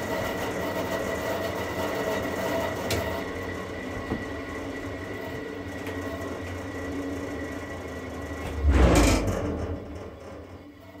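General International cast-iron bandsaw running, a steady motor hum with a thin high whine. About nine seconds in, a loud low rumble swells briefly, and then the sound dies down.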